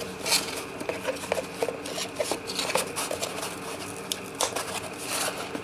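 Guitar potentiometers being pushed and twisted into holes in a cardboard template: cardboard rubbing and scraping with scattered small clicks of the metal parts.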